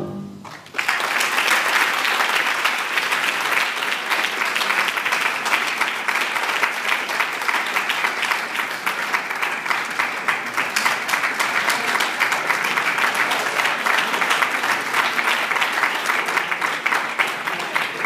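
Audience applauding, starting about a second in and continuing steadily, easing off near the end.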